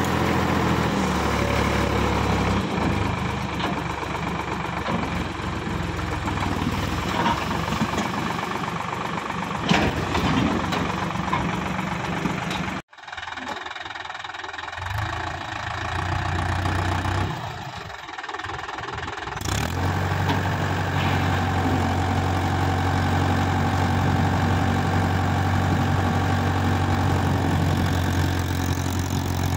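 Tractor diesel engines running steadily at idle. The sound breaks off sharply about a third of the way in, then another tractor engine is heard running evenly.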